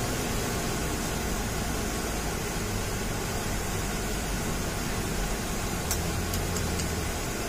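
Mitsubishi Canter dump truck's turbo-diesel engine running hard under a full load up a muddy track, a steady low drone mixed with broad rushing noise. A few faint clicks come about six seconds in.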